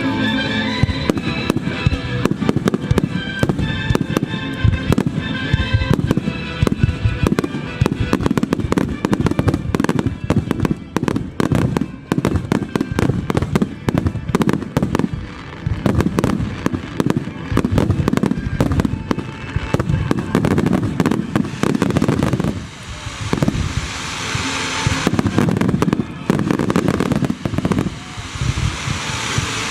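A dense, rapid barrage of firework shells bursting in a starmine finale, booms coming several a second, with music playing under the first several seconds. A high hiss joins the bursts twice in the second half.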